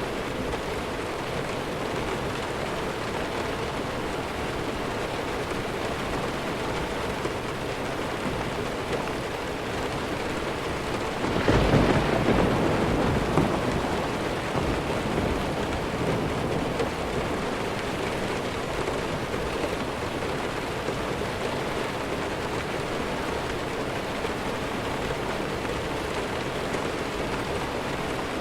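Steady heavy rain, with a single roll of thunder near the middle that swells suddenly and rumbles away over a few seconds.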